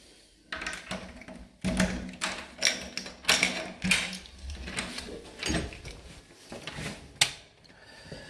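A run of irregular clicks, knocks and rustles at uneven spacing, with no steady rhythm.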